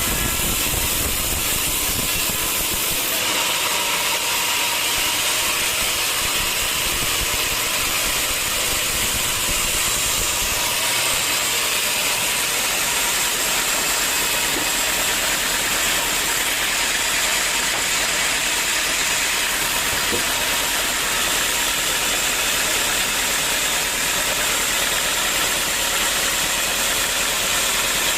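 Sawmill saw machinery running, a steady, dense hiss of machine noise. The sound changes character about three seconds in and again around ten seconds in.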